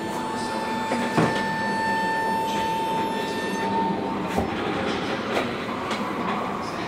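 Stationary passenger train in a station: a steady high whine that stops a little past halfway, over background rumble, with a few sharp knocks, the loudest about a second in.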